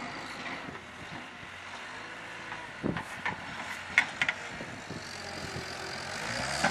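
Engine of a distant skid-steer loader running steadily, with a few sharp knocks about three and four seconds in.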